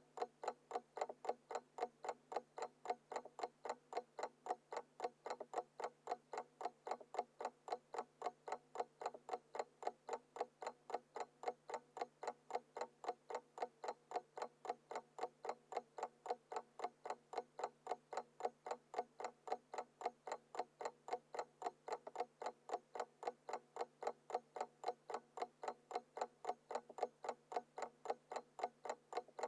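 Small mechanical alarm clock ticking: fast, even ticks, several a second, with a faint steady hum underneath.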